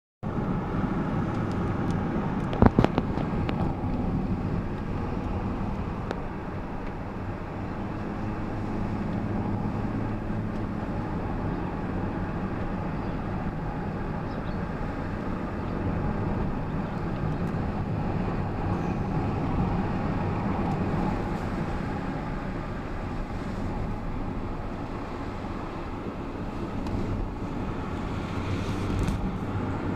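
Car driving, heard from inside the cabin: steady engine and tyre road noise, with one sharp knock about three seconds in.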